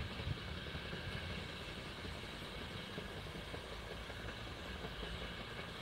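Low, steady vehicle rumble with a short thump right at the start.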